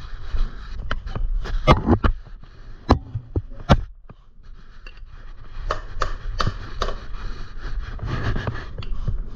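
Irregular clicks, knocks and scrapes of bike parts being handled and adjusted by hand, with a quieter lull about four seconds in before the clicking picks up again.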